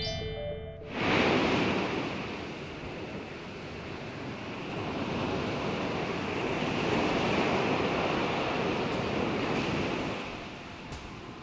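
Ocean surf: waves breaking in a steady rush that swells and eases. It starts about a second in, as a short rising run of music ends.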